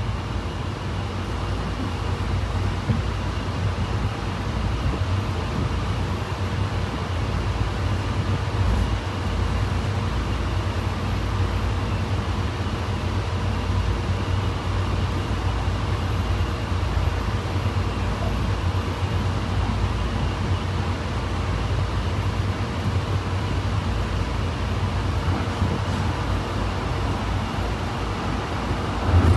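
Honolulu Skyline metro train running between stations, heard from inside the car: a steady low rumble of wheels and running gear with faint steady whining tones above it. A louder low bump comes right at the end.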